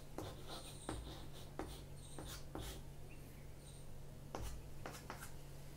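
Chalk writing on a chalkboard: irregular short taps and scratches of chalk strokes.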